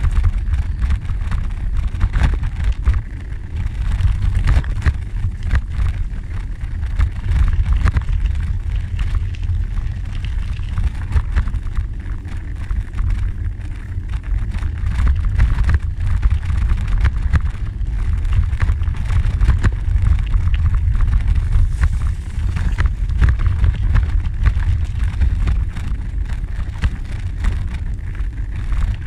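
Wind buffeting the microphone as a steady low rumble, over the crunch and rattle of bicycle tyres rolling on a gravel trail.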